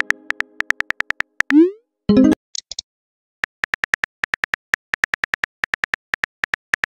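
Phone messaging-app sound effects: rapid keyboard-tap clicks as a text is typed, then a short rising swoop and a brief pitched pop as the message is sent and appears. After a pause of about a second, the tapping clicks start again and run on steadily as the reply is typed.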